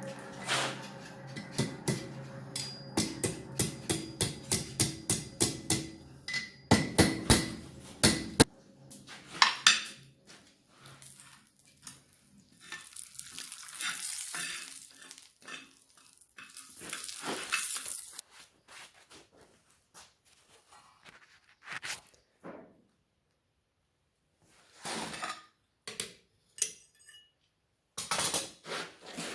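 Hand hammer striking steel on an anvil in a steady run of blows, about two a second, with the anvil ringing; the last few blows are louder. This is followed by several seconds of hissing and then scattered metal clinks and knocks.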